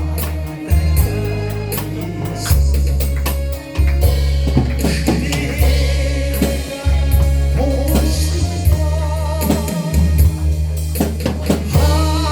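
A singer performing a Korean song with vibrato over accompaniment with a steady drum beat and heavy bass.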